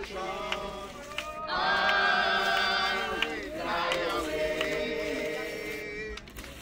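A group of voices singing slowly in long held notes, with a short break about three seconds in.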